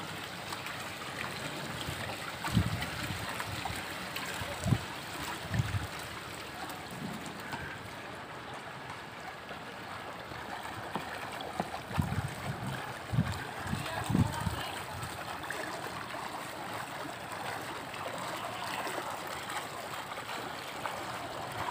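Steady flow of swimming-pool water running over tiled steps and into the overflow gutter, with a few short low thumps about three to six seconds in and again around twelve to fourteen seconds.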